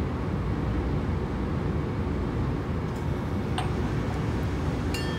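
Steady low rumble of room background noise, like air-handling, with a faint click about three seconds in and a light ringing clink of bar tools near the end.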